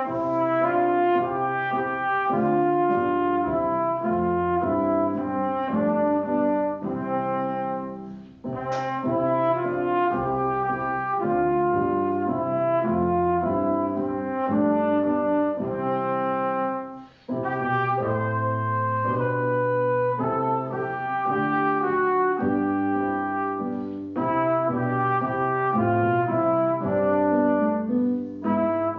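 Instrumental music on a keyboard instrument: slow, sustained chords played in phrases, with brief breaks about 8 and 17 seconds in.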